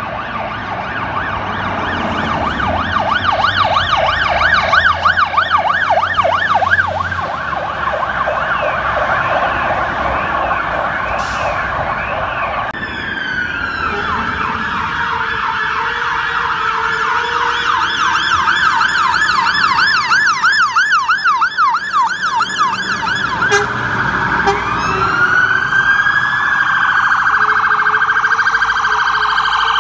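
Sirens of several fire engines on an emergency response, overlapping and switching between a fast yelp and slower wailing sweeps, with long rising and falling glides in between.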